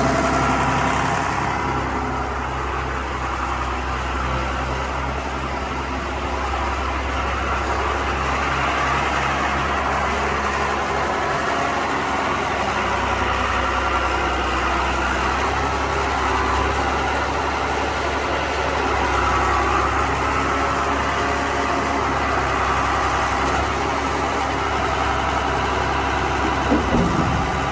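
John Deere 4030 tractor's six-cylinder diesel engine running steadily, with a brief clunk about a second before the end.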